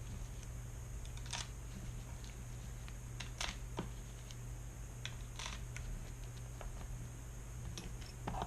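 Faint, scattered clicks and light scrapes of a small screwdriver driving screws into the plastic case of an HHKB keyboard, over a steady low hum.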